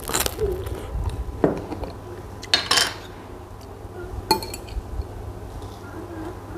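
Short clicks and knocks of eating at a table: a crusty bread roll bitten, a jar lid handled and set down, and a metal spoon clinking against a mayonnaise jar about four seconds in.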